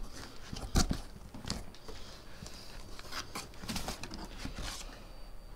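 Box and packaging being handled during an unboxing: scattered clicks and knocks with light rustling, the loudest knock about a second in.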